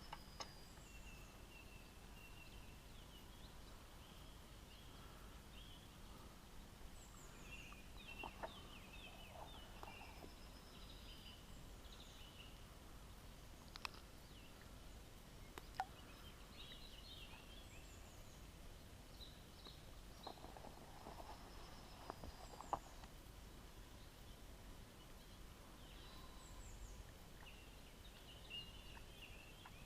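Faint outdoor quiet with small birds singing and calling: short chirps, quick trills and brief gliding notes. A few sharp clicks stand out now and then.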